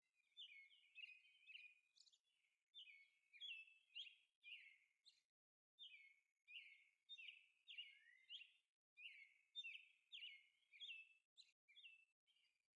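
Faint birds chirping: short, repeated, downward-sliding calls, about two a second, in runs with brief pauses.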